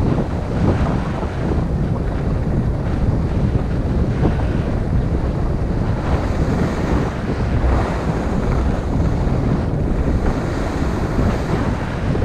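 Steady rush of wind buffeting the action camera's microphone during a ski descent, mixed with the hiss of skis gliding over groomed snow.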